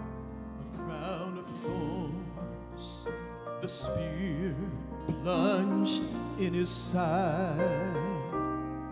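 A man singing a slow worship song with wide vibrato into a microphone, over sustained keyboard chords and a low held bass note.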